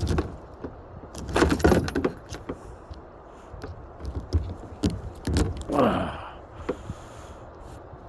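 Rustling, clicking and knocking of a landing net and fishing tackle while a caught walleye is handled in it, with a louder scuffle about a second and a half in.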